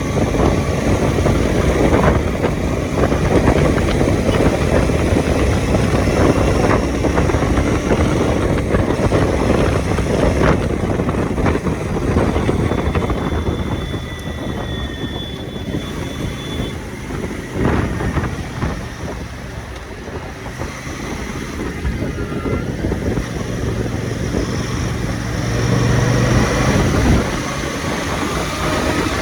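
Royal Enfield Super Meteor 650's stock exhaust, its 648 cc parallel-twin engine running with a dense, low rumble. It gets somewhat quieter in the middle and louder again near the end.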